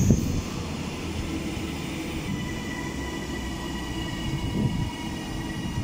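TransPennine Express Class 397 electric multiple unit running past along the platform. Its wheels give a steady rumble on the rails, with occasional thumps, and a faint high whine sits above it.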